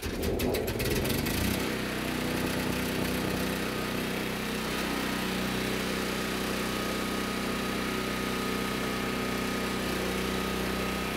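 Generac portable generator's engine starting up: ragged for the first second or so, then settling into a steady run.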